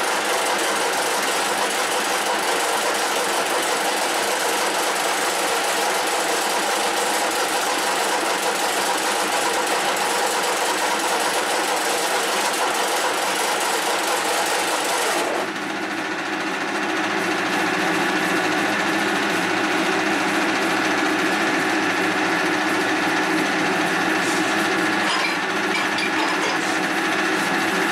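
Soviet 1K62 screw-cutting lathe running steadily, a humming drone with several steady tones, as a drill held in the tailstock chuck bores into the end of the spinning steel bar. About halfway the higher hiss drops away, leaving the lathe's running hum.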